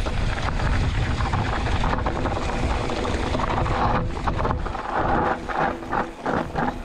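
Wind buffeting the microphone as a Polygon Siskiu T8 mountain bike descends a rough dirt and stony trail, with the bike and its tyres rattling over the ground. From about four seconds in the wind drops and a run of short, irregular knocks and rattles comes through.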